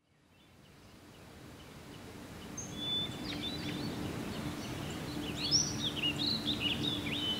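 Outdoor ambience fading up from silence: wild birds chirping and twittering over a steady low background noise with a faint low hum. The birdsong starts a few seconds in and grows busier, with quick rising and falling calls.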